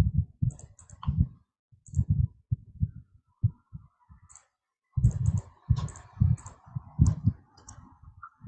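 A run of irregular clicks and soft thumps, coming thicker in the second half, with a faint hum under the later part.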